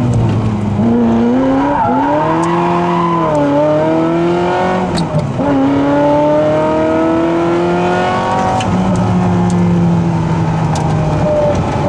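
Ferrari F355's V8 engine heard from inside the cockpit on track, pulling hard with its pitch climbing in several runs, each broken by a brief dip as it shifts up. About three-quarters of the way through it drops to a steadier, lower note as the throttle eases.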